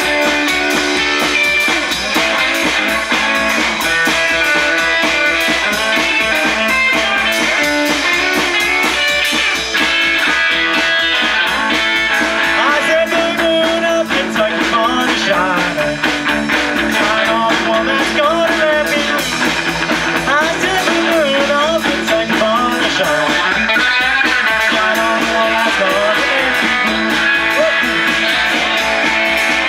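Rockabilly band playing live: a hollow-body electric guitar over drums, with a steady beat.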